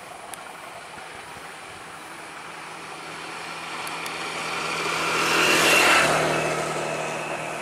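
A motor vehicle passes close by. Its noise swells to a peak about six seconds in, drops in pitch as it goes by, then fades.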